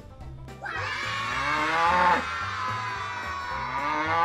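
Cow mooing twice, one long moo followed by the start of another near the end, over background music.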